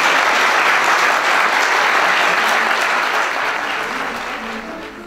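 Audience applauding in a hall, the clapping dying away toward the end.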